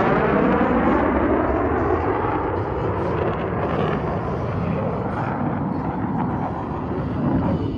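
Jet engine noise from Blue Angels F/A-18 jets, loud at first and slowly fading as they move off, with a sliding, phasing whoosh as the pitch shifts downward.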